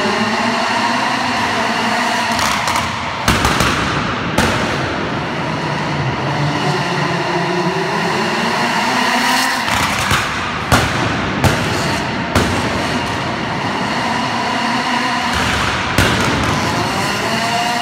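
Citroën Saxo rallycross car's engine revving up and falling back, with about six sharp, very loud exhaust bangs like gunshots scattered through the revving.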